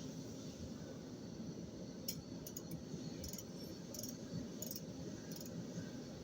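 A machine tool runs with a steady low hum while light metallic clinks, like small metal parts or chips knocking together, come several times at uneven intervals through the middle.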